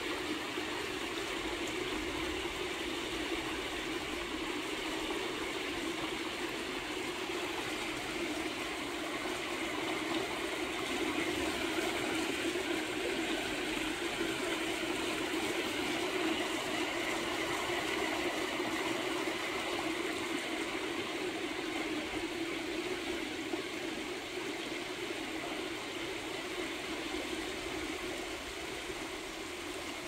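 Mountain stream flowing: a steady rush and babble of water, a little louder in the middle.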